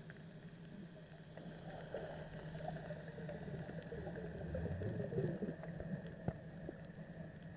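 Underwater ambience on a coral reef: a steady low engine hum carried through the water, with a swell of bubbling gurgles building through the middle and peaking a little past halfway, plus scattered sharp clicks.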